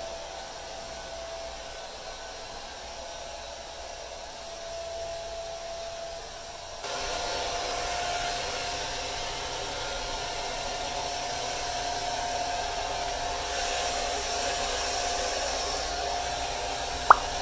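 Handheld hair dryer running steadily: an even rushing noise with a constant whine. For the first seven seconds or so it is quieter and duller, then louder and brighter. Near the end a single brief, sharp rising chirp cuts in, the loudest moment.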